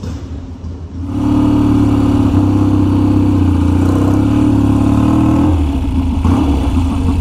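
1966 Triumph Bonneville T120TT's 650cc twin engine running. The revs come up about a second in and are held steady, then ease back a little about five and a half seconds in.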